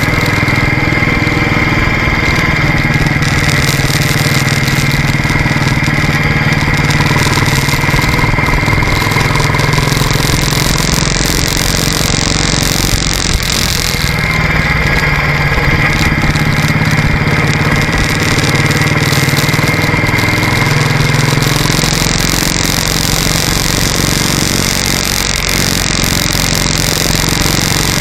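Motorcycle engine running steadily while riding at road speed, mixed with rushing wind and road noise over the microphone.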